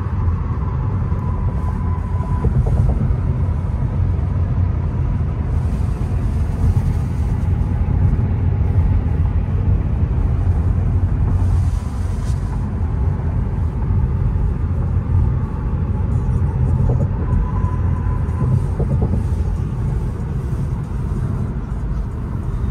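Steady low road rumble and tyre noise heard inside the cabin of a Tesla Model 3 cruising on a highway, with no engine sound since the car is electric.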